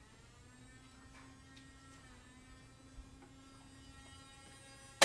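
Faint, steady electrical hum with several thin, high tones held over it, ending in a single sharp click or knock.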